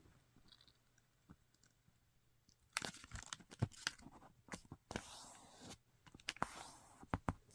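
Square of origami paper being folded in half into a triangle and creased: faint crinkles and sharp crackles, with short swishes as the fold is pressed flat, starting about three seconds in.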